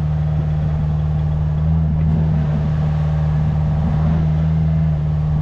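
Engine of a ride vehicle running steadily, a constant deep drone.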